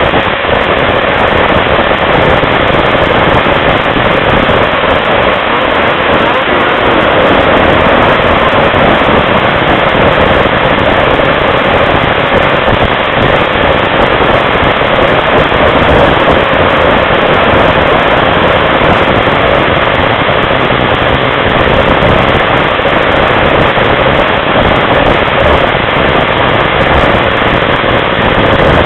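Snowmobile running at speed, heard from aboard the moving machine: a loud, steady engine and rushing noise with no let-up.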